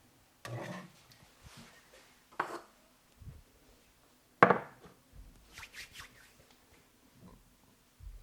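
Hands working an Indian head massage: three sharp percussive strikes about two seconds apart, the last and loudest about four and a half seconds in, with faint rubbing and clicks between.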